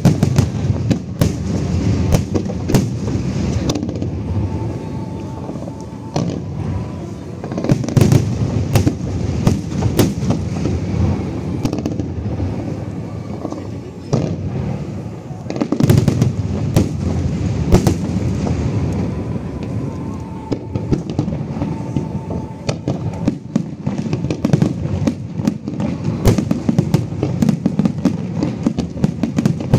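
Aerial fireworks display: a dense, continuous run of booming bursts and crackling reports, one after another, with the heaviest bangs about eight and sixteen seconds in.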